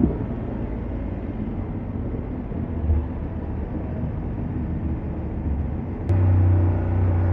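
BMW F750GS motorcycle engine running on the road, a rough low rumble. About six seconds in the engine note jumps suddenly, louder and steadier, as it comes under load.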